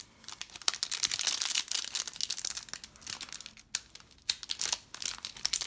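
Plastic foil wrapper of a Panini Donruss trading-card pack crinkling and crackling as it is handled and torn open, with a short pause a little before four seconds in.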